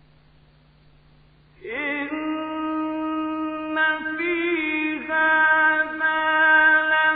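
Melodic Quranic recitation in the mujawwad style by a male reciter. After about a second and a half of faint hum, the voice comes in and holds long, ornamented notes, with a short break about five seconds in.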